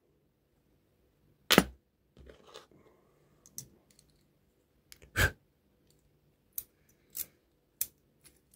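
A lock and lock-picking tools being handled: two louder knocks about one and a half and five seconds in, with scattered light clicks between and after.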